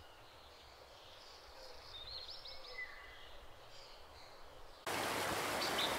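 Faint outdoor ambience with a few bird chirps, then about five seconds in a loud, steady rush of river water cuts in suddenly, with birds still chirping over it.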